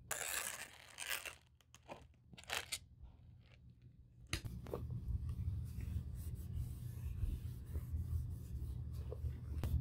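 A few short scraping sounds of a fine screwdriver working a small screw in a bag's metal chain fitting. After a cut about four seconds in, steady rubbing and handling noise follows as hands turn the leather bag and a cloth wipes over it.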